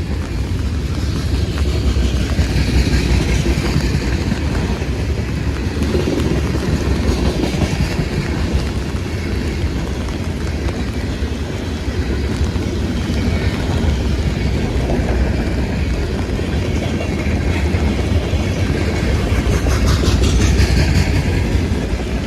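Freight train cars rolling steadily past at a crossing, with a continuous deep rumble and steel wheels clacking on the rail joints.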